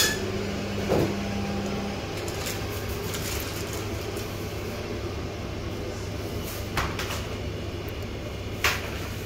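Supermarket ambience: a steady low electrical hum from the refrigerated display cases, with a higher hum that stops about two seconds in. A few short knocks and clatters sound over it, around a second in and twice near the end.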